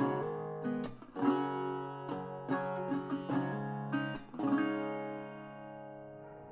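Acoustic guitar music: plucked notes and chords ringing out one after another, fading away near the end.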